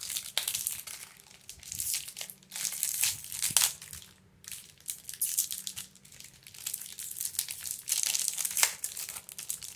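Paper packing crinkling and rustling as it is handled and unwrapped, in irregular bursts with brief lulls.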